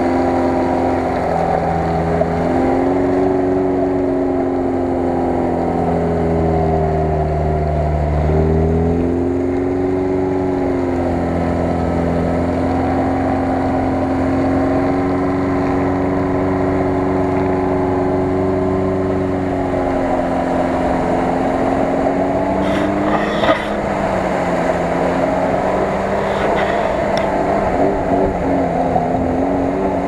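Lada Niva (VAZ-2121) engine revving under load as the car works through deep mud ruts, its pitch rising and falling over several seconds at a time. A couple of sharp knocks come about three-quarters of the way through.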